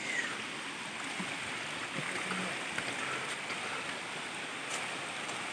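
Steady rush of flowing water, an even hiss without a break.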